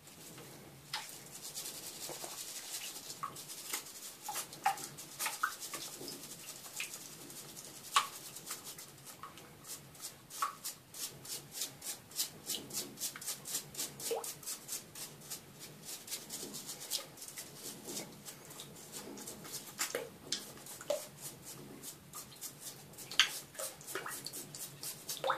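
Toothbrush bristles scrubbing a hedgehog's spines in shallow water, in quick, even rubbing strokes that speed up into a steady rhythm about ten seconds in. Scattered small splashes and knocks against the plastic basin run through the scrubbing.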